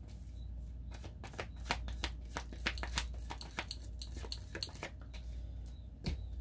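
A deck of tarot cards being shuffled by hand: an irregular run of quick, light papery clicks, several a second.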